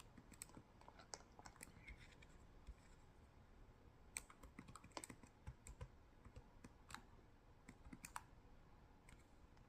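Near silence with faint, irregular clicks and ticks scattered through it.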